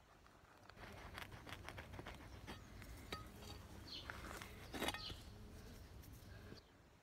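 Small hand trowel digging and scraping in dry, stony soil around a garlic plant, with many small clicks of stones and crumbling earth. There is a louder scuff about five seconds in, and the digging stops shortly before the end.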